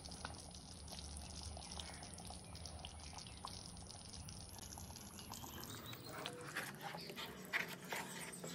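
Wooden spatula stirring thick simmering curry gravy in a steel pan: faint wet squelches and a few soft knocks, busier in the last couple of seconds.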